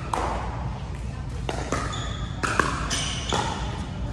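Pickleball paddles striking the hollow plastic ball in a doubles rally: a series of sharp pocks, about six, some in quick pairs.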